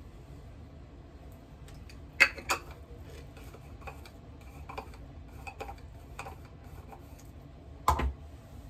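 Light clicks and knocks of a small face-cream jar and its lid being handled and set down on a bathroom counter: two sharp clicks about two seconds in, softer scattered ticks, and a heavier knock near the end.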